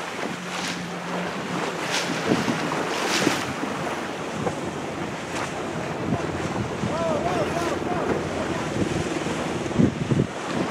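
Wind buffeting the microphone over the rush and splash of open water around a moving boat, with heavier wind thumps near the end.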